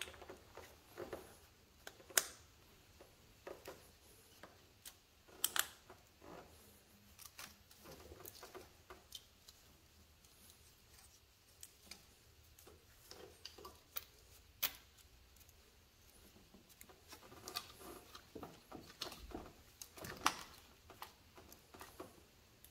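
Faint, scattered clicks and small metallic taps at irregular intervals, like hand tools and engine parts being handled during reassembly; a few sharper taps stand out, about two seconds in, five and a half seconds in, and near fourteen and a half seconds.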